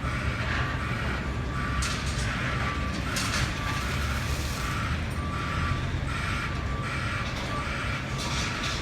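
Construction vehicle's reversing alarm sounding about once a second over a steady low rumble of machinery.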